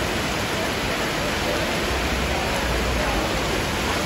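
Heavy downpour and rushing floodwater in a flooded street, a steady dense hiss.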